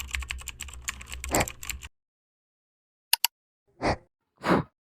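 Rapid clicking like typing on a computer keyboard for about two seconds, then two quick clicks a little after three seconds in.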